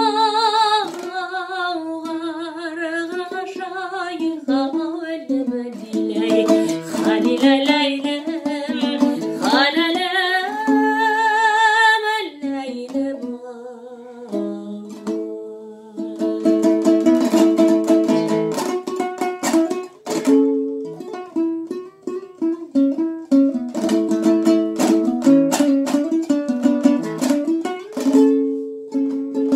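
A woman singing a Kazakh folk song to her own dombra, her voice wavering on held notes over the strummed two-stringed lute. About halfway through the singing stops and the dombra carries on alone with rapid strumming.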